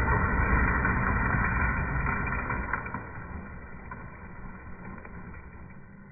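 Slowed-down rumble of a Losi Baja Rey RC truck running on dirt, muffled and deep, with no high end. It drops to a quieter rumble a little before three seconds in.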